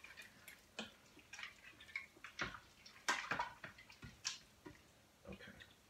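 A spoon stirring dried beans, onions and water in the metal inner pot of an electric pressure cooker: faint, irregular scrapes and knocks against the pot with wet sloshing, about one or two a second.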